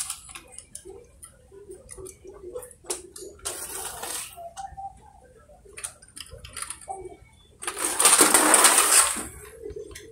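Plastic toy cars rolling and clattering down a hardboard ramp onto concrete, with scattered clicks and two rolling rushes, the louder one a little before the end.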